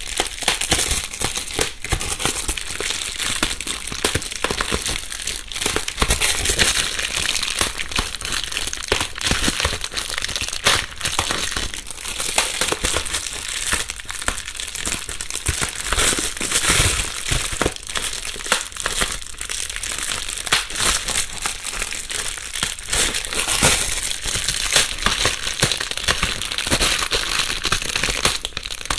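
Bubble wrap being crumpled and rustled by hand, with a dense, continuous crackle of small pops, recorded binaurally.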